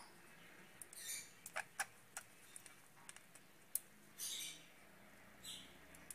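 Faint, scattered small clicks from a metal nail clipper being worked at a budgerigar's overgrown beak to trim it. A few brief, faint, scratchy high sounds come through about a second in and again near the end.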